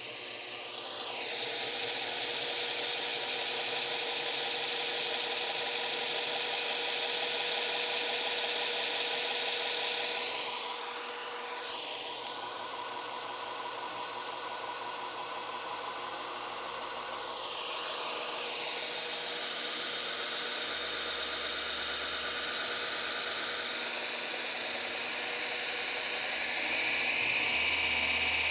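BuckTool 2x42 variable-speed belt grinder running with its belt rubbing against the wall, which shows the belt is not yet tracked true. The motor's pitch slides down and back up a few times as the speed is changed.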